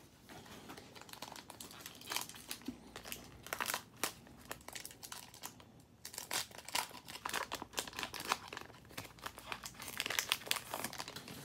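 A 2020 Topps Heritage trading-card pack wrapper being torn open and crinkled by hand: a long run of irregular crackles and rustles.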